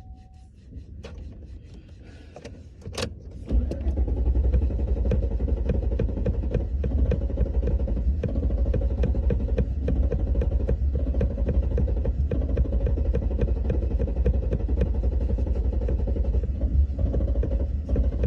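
A few clicks, then the truck's engine cranks on its starter for about fifteen seconds in a steady, even rhythm without catching. The truck won't start.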